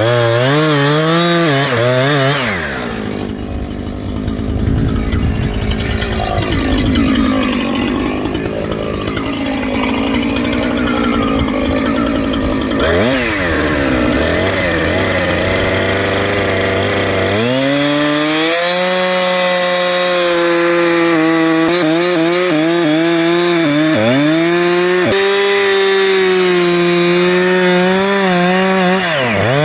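Chainsaw running at high revs while cutting wood, its pitch dropping and recovering several times as it loads up and frees.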